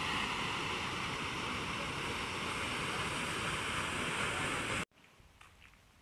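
Waterfall plunging off a sea cliff into the sea: a steady rush of falling water that cuts off abruptly near the end.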